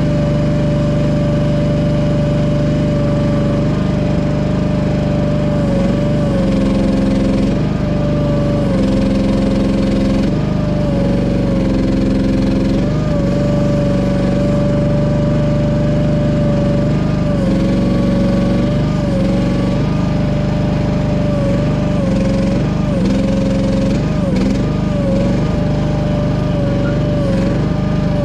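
Small engine of a mini excavator running steadily, its pitch dipping briefly again and again, more often in the second half, as the hydraulics are loaded by working the controls.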